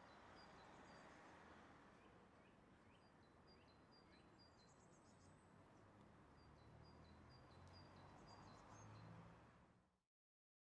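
Faint rural outdoor ambience: a bird repeats a short high chirp at an even pace, with a few rising calls and a brief trill, over a soft hiss and a low rumble that swells toward the end. The sound fades out near the end.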